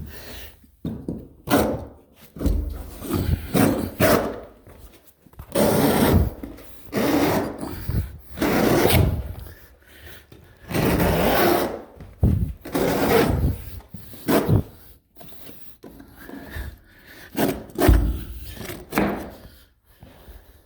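Carpet being cut into strips by hand: the backing rasps in repeated rough strokes, each about a second long, with short pauses between.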